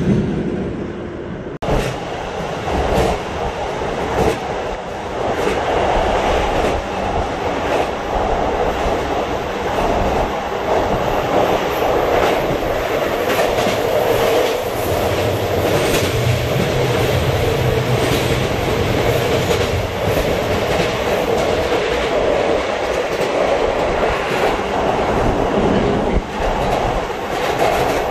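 Train running along the line, heard from inside a passenger car: a steady rumble of wheels on rail with repeated clicks from the rail joints. The sound jumps abruptly about a second and a half in and is louder from then on.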